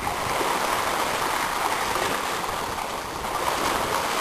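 Sea water washing in a steady rush of small waves, swelling a little near the end.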